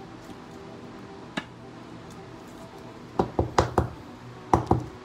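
Hard plastic card holder clicking and tapping: one light click about a second and a half in, then a quick run of four sharp taps and two more near the end.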